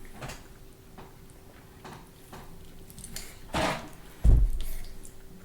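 Someone chewing a bite of steak, with small wet mouth clicks, a short rustle about three and a half seconds in and a dull low thump just after, the loudest sound.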